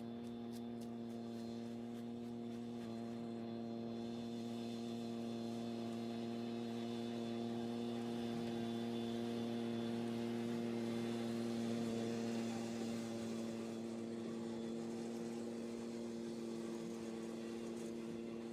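A steady machine hum at one fixed pitch, swelling slightly louder toward the middle and easing back.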